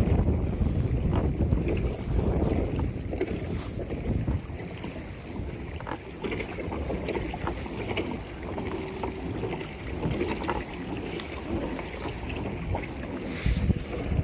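Wind rumbling on the microphone over small splashes and drips of water from a kayak being paddled. The rumble is strongest at the start and rises again shortly before the end.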